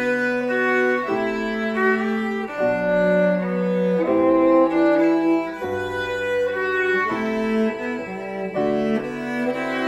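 Small ensemble of bowed strings (violins) with piano playing a slow romance, held notes moving smoothly from one to the next every second or so.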